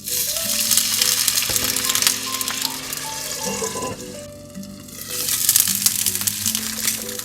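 Chive dumplings sizzling in a hot frying pan, loud at first, easing off around the middle, and loud again from about five seconds in.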